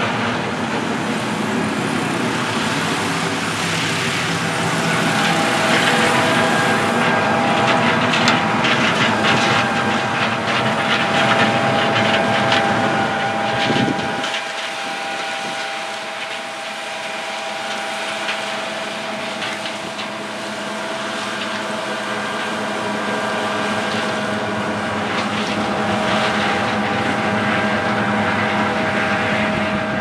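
Combine harvester working a corn field: a steady engine and machinery drone with a held whine. About halfway through, the deepest rumble cuts out suddenly while the whine carries on.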